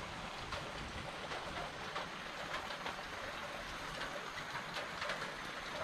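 Light rain falling on garden plants and wet ground: a soft, steady hiss with scattered faint drop ticks.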